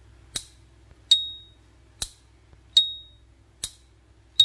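Solid brass Zorro petrol lighter's lid worked open and shut three times: it snaps shut with a short click, then flicks open with a louder click that rings with a brief, high, bell-like ping.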